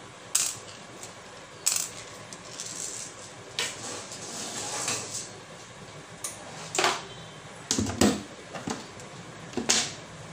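Handling noises from an opened water tank overflow alarm unit being moved about: a string of sharp clicks and light knocks, about eight in all, with a short scraping rustle around four to five seconds in.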